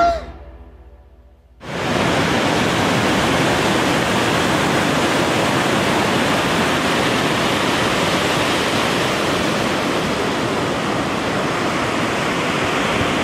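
Background music dies away at the start. About a second and a half in, the steady rush of breaking waves and whitewater cuts in and holds.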